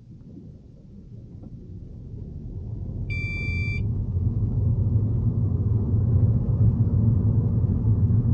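Low road and engine rumble inside a car cabin, building steadily louder as the car pulls away and gathers speed. One short electronic beep sounds about three seconds in.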